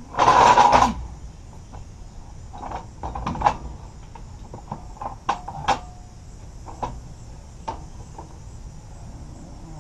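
A loud scraping rattle lasting about a second at the start, then scattered light clicks and knocks of hands and tools working on the underside of a school bus.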